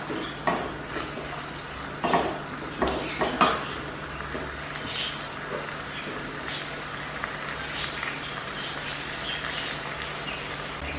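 Tomato and chili sauce sizzling in a non-stick kadai, with a few scrapes and knocks of the spatula against the pan in the first three or four seconds, then a steady sizzle with faint pops.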